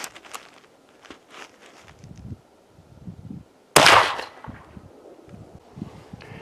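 A single shot from a .45-70 Marlin Guide Gun lever-action rifle, nearly four seconds in: one sharp, loud report that dies away within about half a second. Faint clicks and low thumps come before it.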